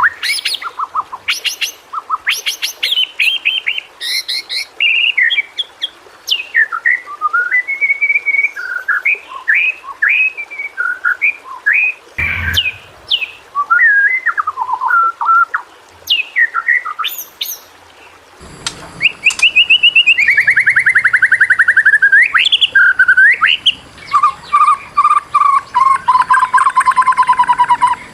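White-rumped shama (murai batu) singing: a varied run of whistled phrases, sliding notes and chirps, turning into fast rattling trills from about two-thirds of the way in.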